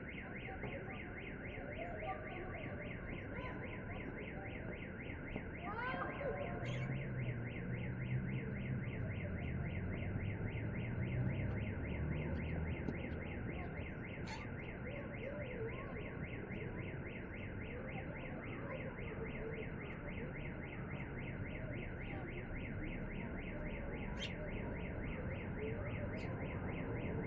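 Car alarm sounding in a residential courtyard: a fast, evenly repeating electronic beeping that keeps up without a break. Under it is a steady outdoor hum, with a brief bird chirp and a low rumble of passing traffic.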